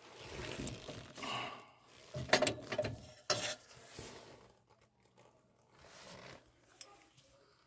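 Handling noise from a gloved hand working the flame sensor out of a gas furnace's burner assembly: rustling with sharp metal clicks, the loudest about two and a half and three and a half seconds in. The sound is much quieter over the last few seconds.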